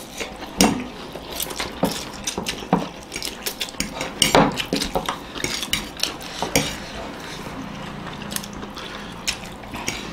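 Metal forks clinking and scraping on plates in many short, irregular clicks, with noodles being slurped and eaten.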